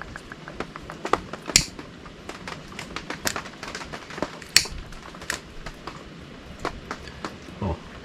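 Scattered, irregular light clicks and ticks, with a couple of sharper clicks about a second and a half and four and a half seconds in.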